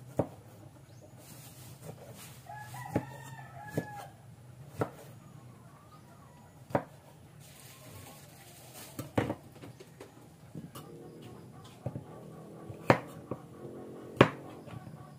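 Cleaver blade knocking sharply on a wooden cutting board while slicing tomatoes and chopping green beans, in irregular strokes a second or two apart. A rooster crows in the background about three seconds in.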